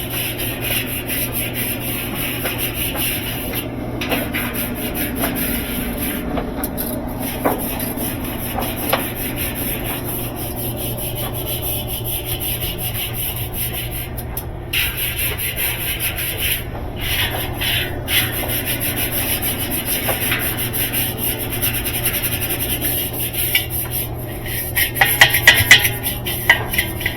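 Continuous rubbing and scraping over a low steady hum, with a few sharp metallic clanks near the end.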